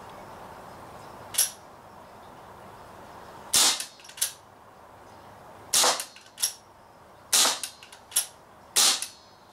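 Umarex Smith & Wesson Model 29 CO2 BB revolver firing: a lighter snap about a second in, then four sharp shots a second and a half to two seconds apart, each followed by a softer click. The CO2 is nearly exhausted, by the shooter's reckoning.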